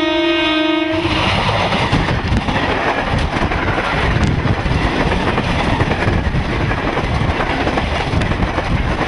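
Diesel locomotive's horn sounding a steady chord that cuts off about a second in. It is followed by the rumble and clatter of the locomotive and its coaches rolling past, with wheels clicking over rail joints.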